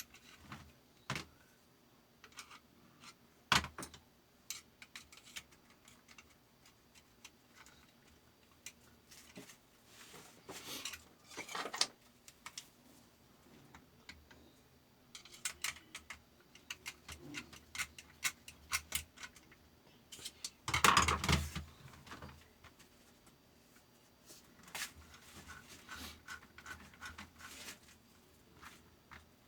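Small metal parts and tools of a fabric-cutting machine's sharpener being handled during maintenance: scattered clicks and clinks, with a louder, noisier rattle lasting about a second some two-thirds of the way through.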